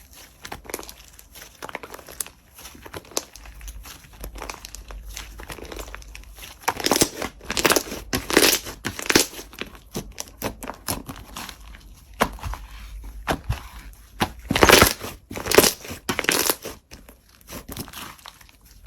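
Slime being squeezed, pressed and pulled by hand, making a run of irregular clicky, crinkly noises. They come in louder clusters about seven seconds in and again near fifteen seconds.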